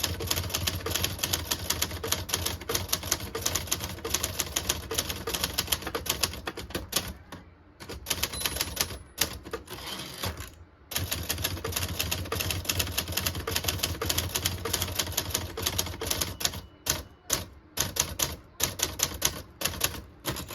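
Fast typing on a 1962 Everest K3 portable typewriter: a quick, steady run of keystrokes. The typing pauses briefly twice midway and thins to scattered strokes near the end.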